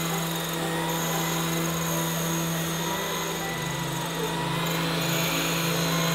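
Electric random orbital sanders running on end-grain hardwood boards, with shop machinery running behind them: a steady motor hum with a high whine over it.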